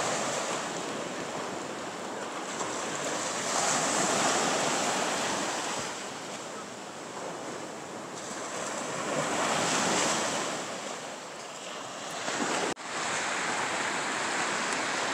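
Ocean surf breaking on the beach, the wash swelling and fading every few seconds. It cuts out for an instant near the end.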